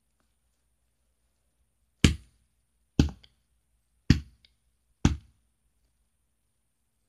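Four sharp knocks about a second apart, each followed by a faint click, between stretches of near silence.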